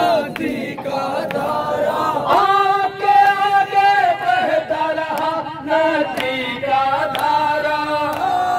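Men chanting an Urdu noha (Muharram lament) into microphones, the lead voice holding a long note about two seconds in, with other voices joining. Steady sharp slaps of matam (chest-beating) keep time underneath.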